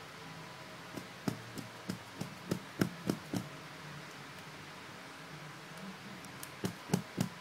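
Light clicks or taps, about nine in a quick run at roughly three a second, then a few more near the end, over a steady hiss.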